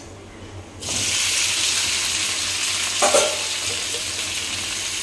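Straw and shiitake mushrooms poured into hot oil and garlic: a loud sizzle starts suddenly about a second in and holds steady while they fry, with a brief louder sound about three seconds in.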